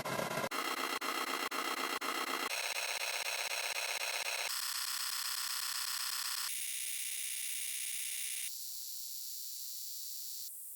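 A 'surprised' meme sound effect stacked and repeated so many times that it has become a harsh, noisy din. About every two seconds it jumps higher and thinner, and grows a little quieter each time, ending as a faint high hiss.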